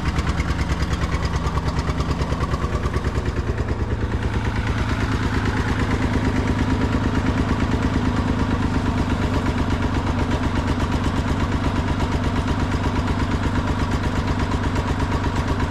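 Massey Ferguson turf tractor's engine running steadily, with an even firing rhythm. The tractor had sat unused for years and is running on a weak fuel supply from the tank.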